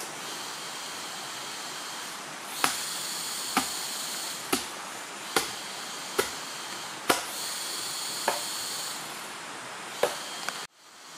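Long-handled knife chopping into bamboo: eight sharp strikes, about one a second, over a steady high hiss.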